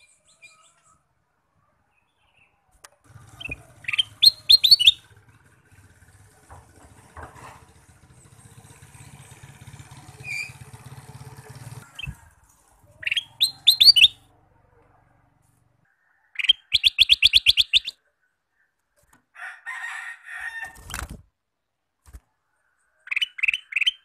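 Caged ruby-throated bulbul (kutilang emas) singing short bursts of rapid, high whistled notes, five phrases with pauses between them. A faint low hum runs under the first half, and there are a couple of knocks as the bird hops about the cage.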